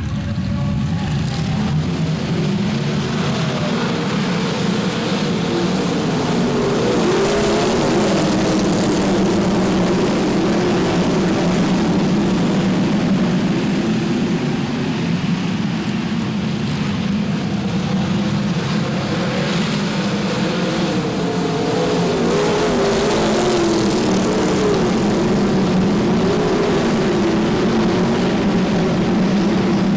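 A pack of winged sprint cars racing flat out, their V8 engines running at high revs in a continuous, loud blend whose pitch wavers up and down as the cars go around the track and pass.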